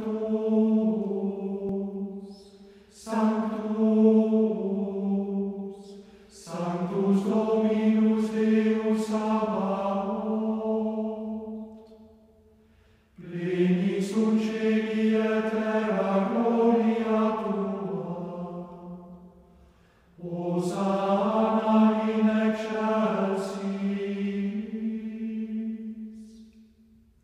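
Slow unaccompanied singing of a hymn or chant in five long, sustained phrases, with short breaks between them where the sound drops away.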